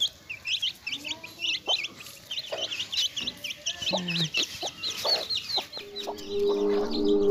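A brood of chicks peeping rapidly and without pause, high-pitched, with a mother hen's lower clucks now and then. Steady music tones come in near the end.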